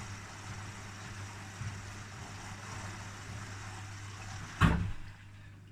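Hoover Dynamic Next washing machine running in its service test cycle, a steady hum with a hiss over it; a loud clunk about four and a half seconds in, after which the running sound drops away.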